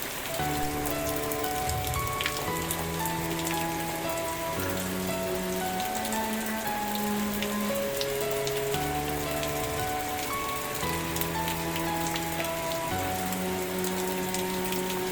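Steady rain falling on a surface, a constant hiss with scattered sharp drop ticks. Under it runs soft music of long held chords that change about every two seconds.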